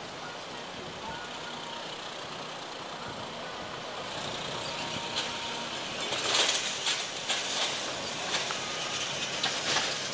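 Highway vehicle passing: steady tyre and engine noise that grows louder from about four seconds in and peaks around six to seven seconds, with scattered sharp clicks and rattles.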